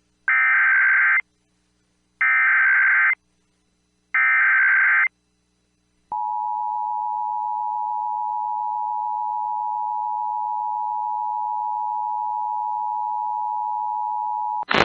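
Emergency Alert System opening for a Child Abduction Emergency (AMBER Alert). It starts with three one-second bursts of SAME digital header data, about two seconds apart. Then the steady EAS two-tone attention signal sounds for about eight seconds and stops just before the announcement.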